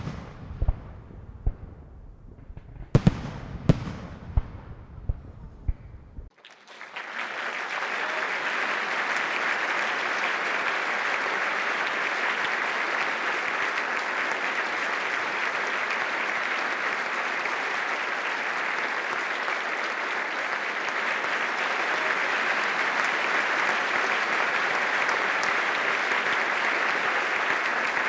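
A few firework-like bangs with fading crackly tails, then, about six seconds in, an abrupt switch to steady, dense applause from a crowd that carries on evenly.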